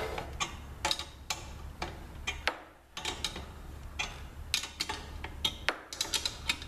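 Irregular sharp metallic clicks and taps of tools and parts being handled while a drill press is bolted together, over a steady low hum.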